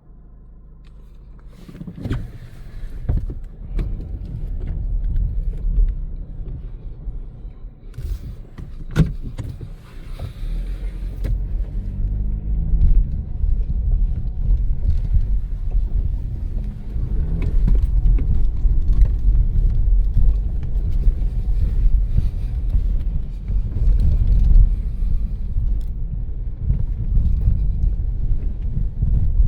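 Car driving on snowy roads: a low rumble of tyres and engine that grows louder as the car gathers speed, with a few sharp knocks in the first ten seconds.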